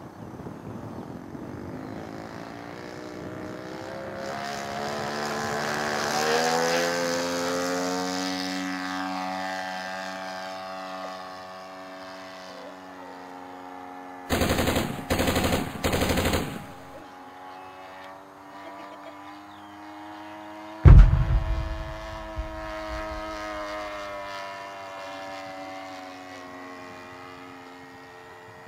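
Saito 72 single-cylinder four-stroke glow engine of a radio-controlled Spitfire model, swinging a three-blade propeller. It throttles up, its pitch rising over several seconds for the takeoff and climb, then runs steadily in flight. About halfway through come three short, loud bursts of noise, and a few seconds later the loudest sound: a sudden thump with a low rumble lasting about three seconds.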